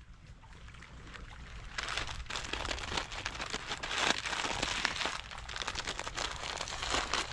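Dense crinkling and crackling made of many small rapid clicks, starting about two seconds in after a quieter stretch.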